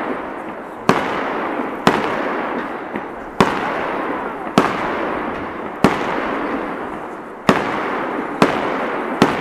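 Aerial fireworks bursting overhead: about eight sharp bangs, roughly a second apart, each trailing off in a long rolling echo.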